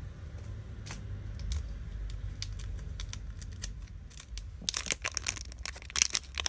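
Foil booster pack wrapper being handled and torn open: scattered light crinkles at first, then dense, sharp crackling of the foil from about two-thirds of the way in.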